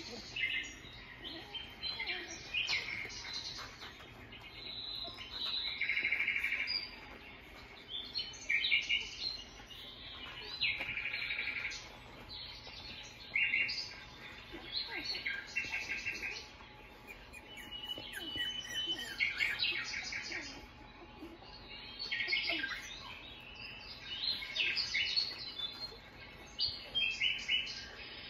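Newborn Australian Shepherd puppies squeaking and whining while they nurse, in many short high-pitched bursts that come irregularly every second or two.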